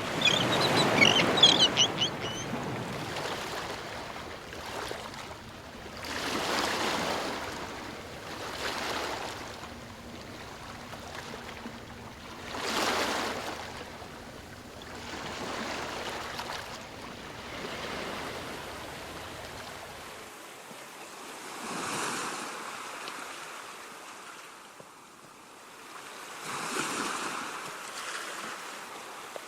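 Ocean waves breaking and washing ashore in slow, repeated swells, each rising and fading every few seconds. Seagulls call over the surf in the first couple of seconds.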